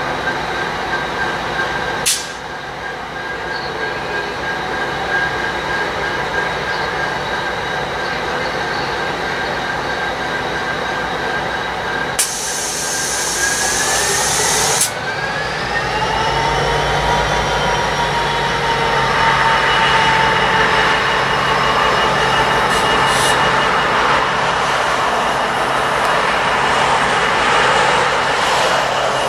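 Metrolink EMD F59PH diesel locomotive standing and running steadily, with a sharp click early on. About halfway through, a loud hiss of released air lasts a few seconds and stops abruptly; then the engine's note rises and it runs louder.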